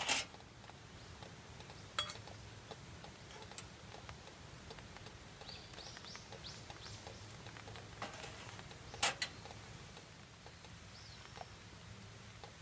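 Sparse light clinks and taps of metal utensils on stainless camp cookware, the sharpest at the very start and about nine seconds in. A quick run of short rising bird chirps comes in the middle, with one more near the end.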